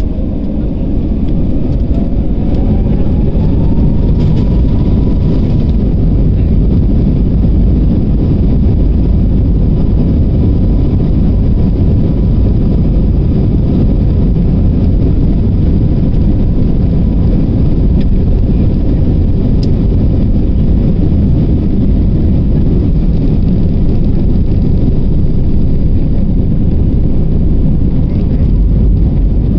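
Jet airliner engines at takeoff heard from inside the cabin: a whine rises in pitch over the first few seconds as the engines spool up, then holds steady over a loud, constant roar through the takeoff roll and climb-out.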